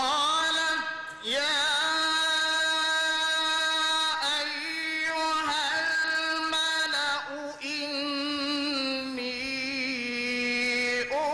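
A man reciting the Quran in the melodic competition style, holding long drawn-out notes with wavering ornamental turns. There are short breaks for breath about a second in and again around four seconds in.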